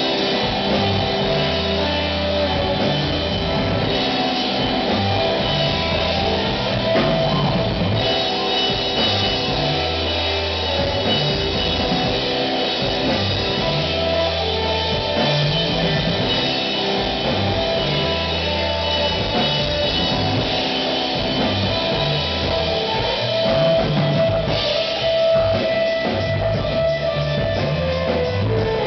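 Rock band playing live: electric guitar over a drum kit, with a steady beat.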